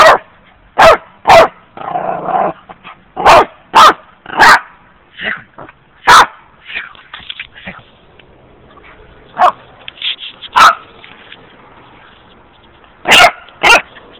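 A dog barking in a series of short, sharp barks. The barks come in quick succession for the first several seconds, then grow sparse, with two barks close together near the end. A brief lower, rougher sound comes about two seconds in.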